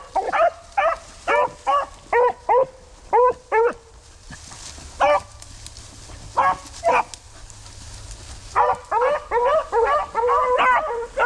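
Beagle hounds giving voice on a scent trail: a steady run of short chop barks, about two a second, then a lull with a few single barks. Near the end several dogs bark at once in an overlapping chorus.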